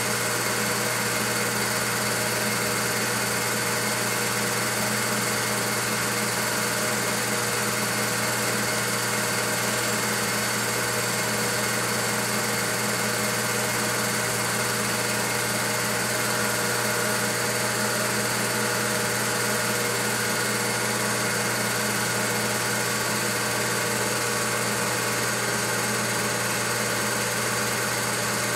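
Home-movie film projector running steadily: a constant mechanical whirr of motor and film transport, unchanging throughout.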